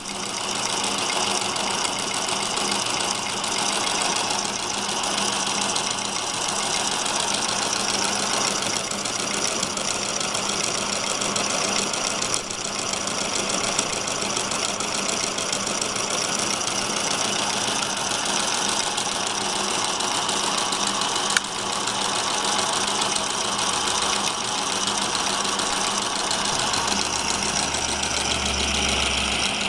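Homemade brass-and-steel single-cylinder model steam engine running steadily on steam from its small boiler, with a rapid, even chuffing and steam hiss, running really good after fine tuning. A single sharp click comes about 21 seconds in, and a low rumble joins near the end.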